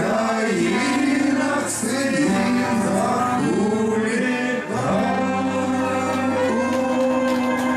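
Live rock band playing, a man singing over electric guitar and keyboard; from about five seconds in a long note is held.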